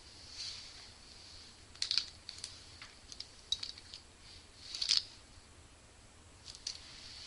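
Light clicks and taps with a few brief brushy swishes as a makeup brush and eyeshadow palette are handled; the loudest clusters come about two seconds in and again about five seconds in.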